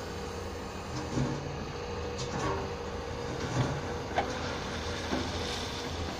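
Caterpillar 323E tracked excavator's diesel engine running steadily, with a handful of short knocks and clatter as the bucket works the stony track ballast; the two sharpest knocks come a little past halfway.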